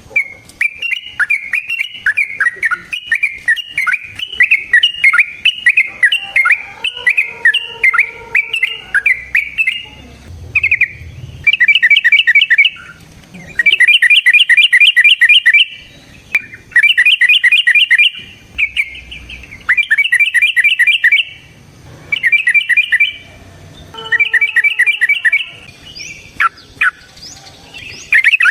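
Yellow-vented bulbul (trucukan) singing its fast chattering 'ropel' song. A long run of rapid repeated notes fills the first ten seconds, then comes in shorter bursts of a second or two with brief pauses between them.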